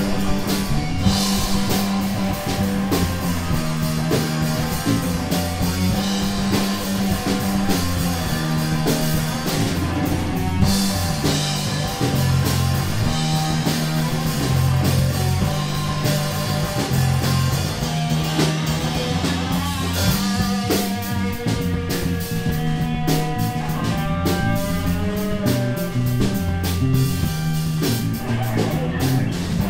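A rock trio playing live: electric guitar, bass guitar and drum kit over a steady bass line and cymbals. About two-thirds of the way in, a guitar line with held, sustained notes comes forward.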